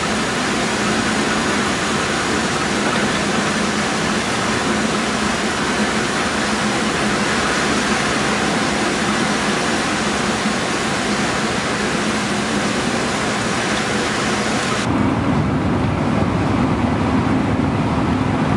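Riding inside a bus in the rain: a steady hiss of rain and wet tyres on the road over the bus's running rumble. About fifteen seconds in, the hiss cuts off suddenly and a lower, steady rumble of the bus on the road is left.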